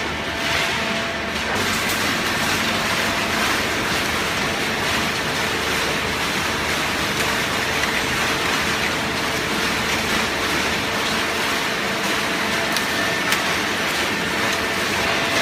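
Steady machinery noise with a few faint, constant hum tones underneath, holding level throughout.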